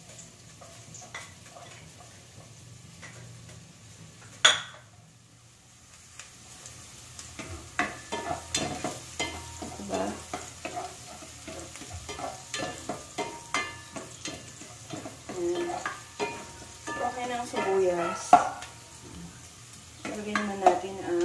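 Chopped onion sizzling in hot oil in a pot while a spatula stirs and scrapes against the pot, in quick repeated strokes from about halfway through. A single sharp clack about four seconds in is the loudest sound.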